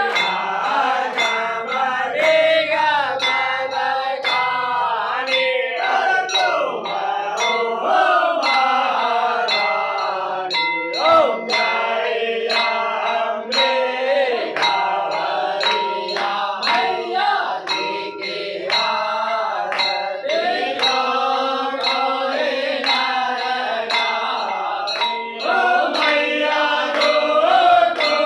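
Hindu devotional song: sung chant-like melody over a steady percussion beat of about two strikes a second.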